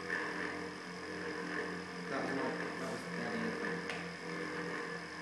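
Van de Graaff generator running with a steady electrical hum from its belt-drive motor, with a single short click about four seconds in.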